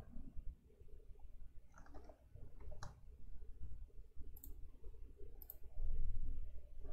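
A few short, faint clicks over a low background rumble.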